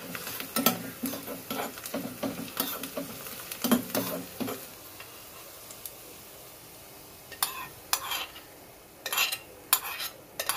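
A spoon stirring and scraping in a small metal pan of hot ghee tarka with chopped green chilli and coriander. It clinks repeatedly against the pan for about the first four and a half seconds, with soft sizzling. Near the end, a few separate taps and scrapes follow as the pan is scraped out over the curry.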